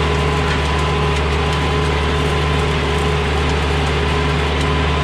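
Tractor diesel engine running steadily under load, towing a harrow, with a steady whine above the engine note.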